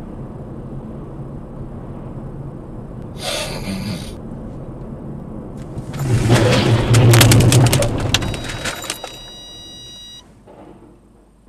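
Road noise inside a moving car, then about six seconds in a loud head-on collision between a Scania truck and the Volvo car just ahead, with crunching metal and many sharp impacts over about two seconds. A steady high electronic tone follows for a couple of seconds.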